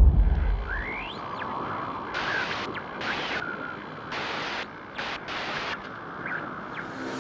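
Static-like hiss with bursts of brighter noise that cut in and out sharply, and a few short pitch glides, as the tail of a deep boom fades in the first second.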